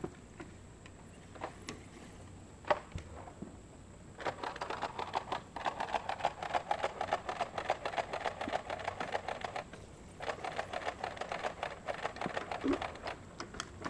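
Mountain bike's rear hub ticking rapidly as the rider coasts. The ticking starts about four seconds in, stops briefly near ten seconds and starts again. A single sharp knock comes about three seconds in.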